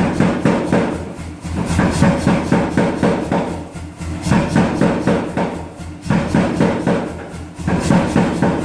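Power hammer striking a red-hot 1-inch steel bar in quick runs of rapid blows, about five runs with short pauses between, over the steady hum of the hammer's motor, as a 1/2-inch tenon is forged on the bar's end.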